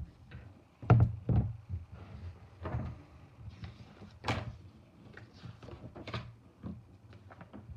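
Handling noise from a book being moved and set down close to the microphone: two heavy thumps about a second in, then lighter knocks and rustles, with one sharp tap about four seconds in.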